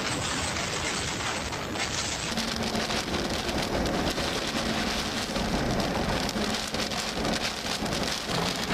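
Heavy rain in a thunderstorm, a steady hiss that changes character a little over two seconds in.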